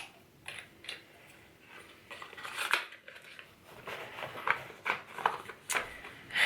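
Cosmetic packaging being handled: a string of small clicks, taps and rustles, the sharpest about two and a half seconds in and a quicker run of them between about four and six seconds.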